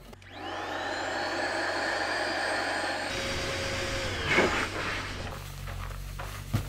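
Small electric air pump inflating an air mattress: the motor spins up with a rising whine, runs steadily, then switches off and winds down about four seconds in.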